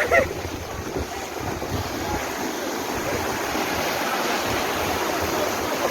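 Floodwater rushing, a steady even noise.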